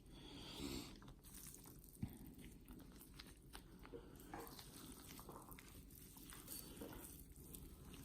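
Faint soft, wet tearing and squishing of tender smoked brisket point being shredded apart, with scattered light clicks and a single sharp tick about two seconds in.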